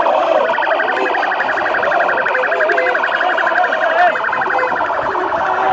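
A large crowd of football supporters singing and chanting together, with scattered firecracker pops through it.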